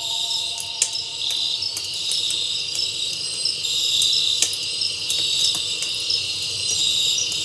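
Crickets chirping in short repeated trills, with scattered light clicks.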